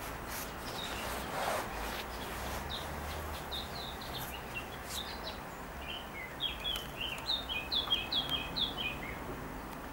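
A small bird chirping, first a few scattered single chirps, then a quick run of short falling notes from about six to nine seconds in, over a steady outdoor background hum.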